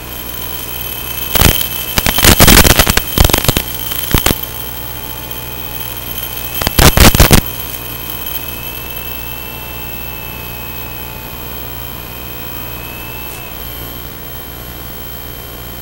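Steady electrical hum and thin whistling tones from an analog FPV receiver's audio channel, one whistle drifting slightly in pitch. Loud bursts of noise come between about one and a half and four seconds in, and once more around seven seconds.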